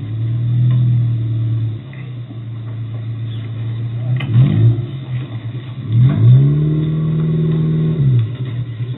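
Suzuki Samurai rail cart's engine idling, revved in a quick blip about four seconds in, then revved up again about six seconds in, held for nearly two seconds and let back down as the vehicle creeps along the rails.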